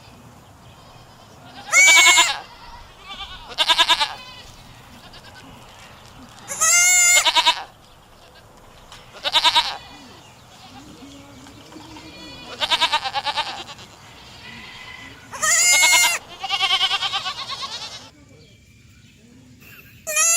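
Goat bleating: about seven loud, wavering bleats, each lasting up to about a second, spaced a few seconds apart.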